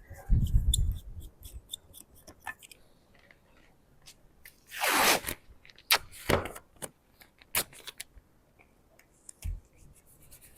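Hands working a small craft piece: a thump and rumble at first, scattered small clicks and knocks, and two short scraping strokes about five and six seconds in.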